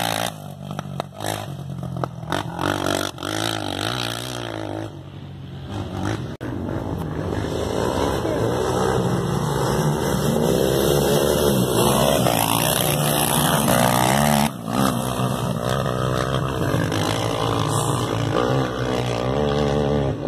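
Racing ATV engines revving up and down as the quads run the dirt track, pitch rising and falling with throttle and gear changes, several machines overlapping. It grows louder about six seconds in.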